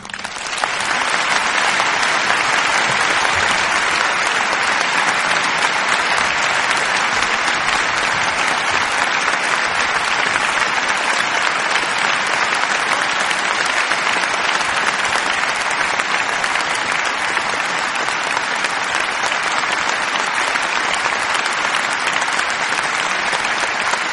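Audience applauding: dense, steady clapping from many hands, swelling up within the first second and then holding even.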